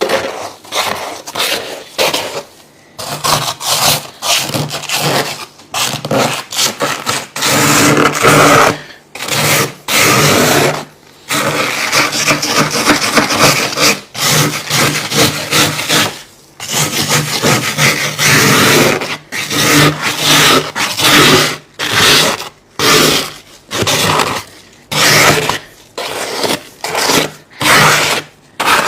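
Freezer frost ice being crunched between the teeth and scraped: many quick, loud crunching and scraping bursts with brief pauses between them.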